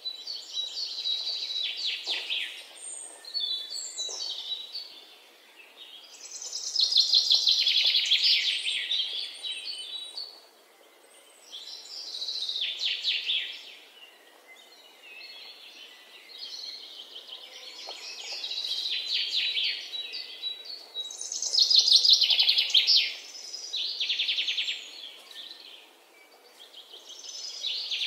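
A songbird singing: high-pitched phrases of fast trills, one every few seconds, each lasting a second or two.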